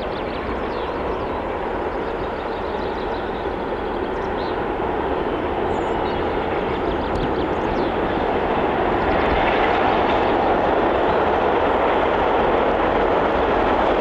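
Diesel locomotive hauling a long train of passenger coaches approaching, its running noise a steady rumble that grows louder over the second half.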